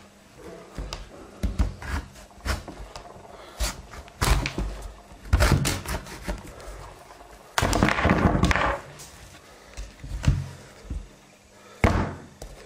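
Kitchen knife working a pumpkin half on a plastic cutting board: irregular knocks of the blade and the pumpkin against the board. About two-thirds of the way in comes a longer scraping stretch as the seeds and stringy pulp are scraped out of the cavity.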